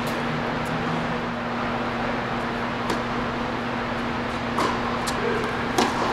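Tennis ball being struck by rackets and bouncing on an indoor hard court during a rally: a few sharp pops, the loudest a racket hit near the end, over a steady low hum.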